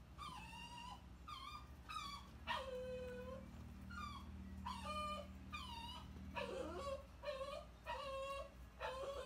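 Puppies whining and yipping as they play-wrestle: about a dozen short high-pitched calls, many dropping in pitch, with one longer, lower whine about two and a half seconds in. The sound is faint.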